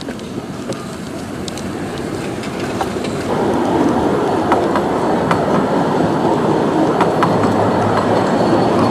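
Narrow-gauge park railway train hauled by the EA 02 battery-electric locomotive rolling past, its wheels clicking over the rail joints. It grows louder over the first three seconds or so, then holds steady.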